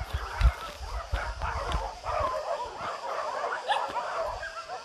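Many dogs barking and yelping at once, overlapping calls from a pack at some distance, with a few low thuds in the first two seconds.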